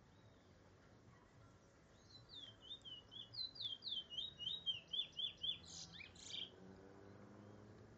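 Trinidad bullfinch (chestnut-bellied seed finch) singing one song phrase, starting about two seconds in: a quick run of slurred whistled notes, about four a second, ending in two harsher, buzzier notes.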